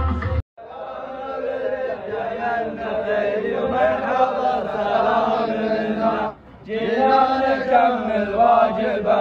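A group of men chanting a poem together in unison, in the style of a Saudi wedding rajaz chant. The chant is cut by a brief silence just after the start and dips for a moment about six seconds in.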